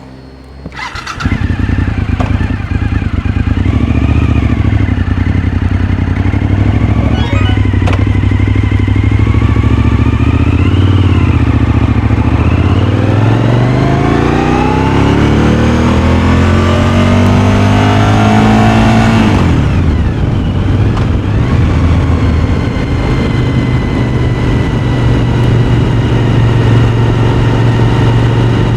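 Suzuki SV1000's 90-degree V-twin, breathing through a GPR aftermarket silencer, comes in loudly about a second in and runs steadily. Its engine speed then climbs smoothly for about seven seconds, drops back sharply around twenty seconds in, and settles into steady running.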